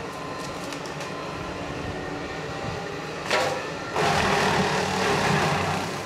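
Bobcat T770 skid steer's diesel engine running under load while its high-flow direct-drive brush mower cuts through saplings. A sharp crack comes about three seconds in. It is followed by about two seconds of louder shredding as the blades mulch wood, then the steady machine sound again.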